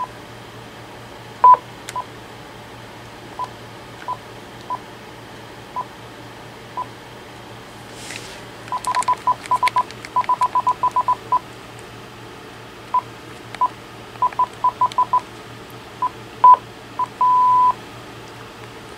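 Uniden cordless phone handset's keypad beeping as its keys are pressed: short single-pitch beeps, some spaced out and some in quick runs, while a name is typed in. Near the end a longer beep sounds as the edited entry is saved.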